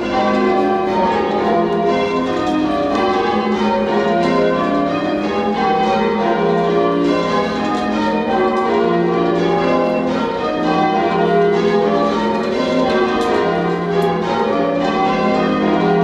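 Church tower bells being change-rung, rung full circle by a band pulling the ropes below. The strikes follow one another in a continuous stream of overlapping bell tones at an even loudness.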